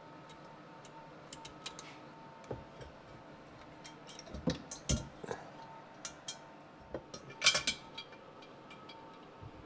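Irregular light clicks, knocks and clinks of exhaust parts being handled and fitted onto a Sea-Doo 951 DI engine, loudest in clusters about halfway through and about three-quarters through.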